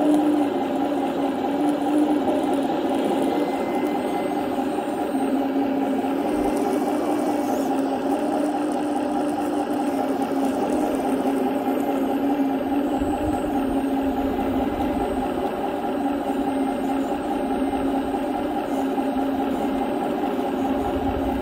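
Small electric motor of a radio-controlled construction model whining steadily, its pitch wavering slightly.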